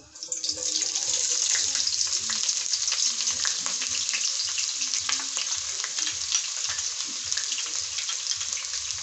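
Chopped onions sizzling and crackling in hot oil, starting suddenly just after the start as they go into the pan, then a steady loud sizzle.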